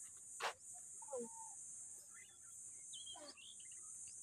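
Faint summit ambience: a steady high-pitched hiss with a few short, faint bird calls scattered through it. A single sharp click about half a second in is the loudest moment.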